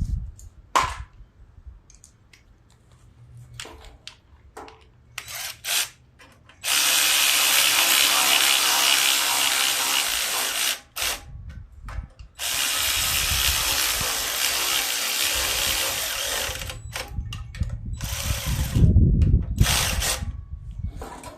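Power drill running to drive the 8 mm bolts of the tiller's carburetor cover: two long runs of about four seconds each, then shorter bursts, with a few knocks of handling before.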